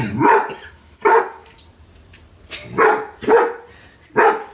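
A dog barking at a cat to get it to play: about five short barks spread unevenly over four seconds.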